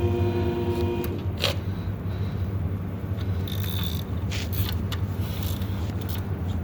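Scattered metallic clicks and clinks of tools and engine parts being handled, over a steady low hum. A short steady tone stops about a second in.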